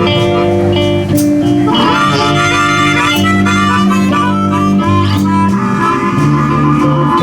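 Live blues band playing, with a blues harmonica taking the lead over guitar, bass and drums.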